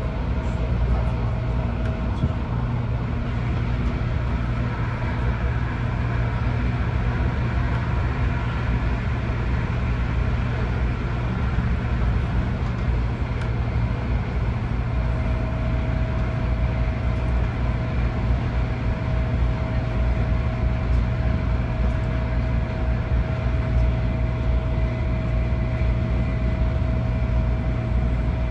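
Cabin noise inside an Adtranz-CAF Airport Express train running at speed: a steady low rumble of wheels on rail. A steady whine joins about halfway through and holds.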